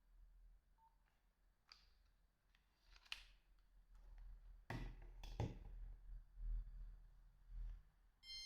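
Faint clicks and knocks of a Nokia 2110i mobile phone being handled, with a brief high electronic beep about a second in and a buzzy electronic beep near the end.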